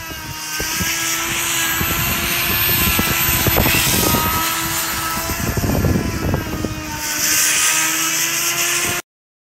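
A motor running steadily with a droning hum, over a rough rumble with scattered knocks; it cuts off suddenly near the end.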